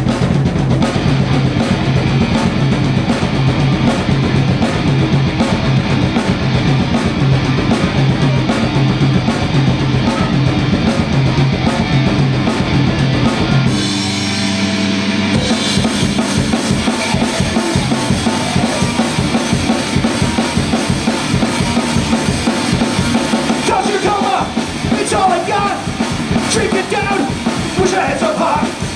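Punk rock band playing live, loud, with a fast steady drum beat; the band drops out briefly about halfway, then comes back in with a different beat, and a voice comes in near the end.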